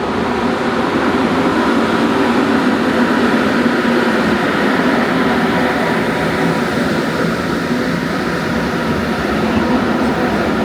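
A train running at the station, a steady loud rumble with a faint steady hum and whine through it.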